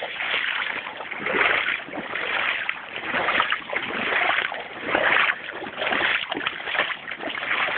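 Wellington boots wading through shin-deep floodwater, with a splashing swish at each step about once a second.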